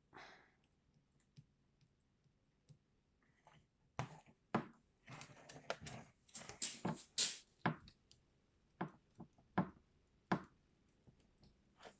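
Knock in the steering column of a Toyota Hilux Surf 215 / Land Cruiser Prado 120: a string of sharp, irregular knocks and clicks, bunched between about four and ten seconds in, with a rustling hiss among them. The knocking is the column fault being demonstrated.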